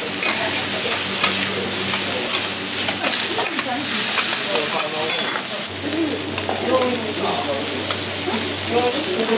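Shredded cabbage and noodles sizzling on a hot steel teppan griddle while metal spatulas scrape and clack against the plate, with frequent sharp taps.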